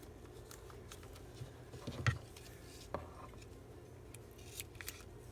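Scissors cutting card and paper being handled: scattered short snips and soft knocks, the loudest about two seconds in.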